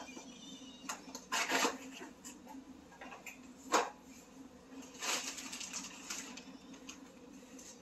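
Small items and plastic packaging being handled: a few short rustles and clacks, the loudest about a second and a half in and near four seconds, with a longer rustle around five seconds.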